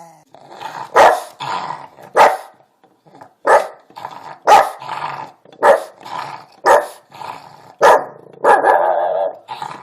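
A dog barking over and over, a sharp loud bark about once a second, with quieter sounds between the barks and a longer drawn-out call near the end.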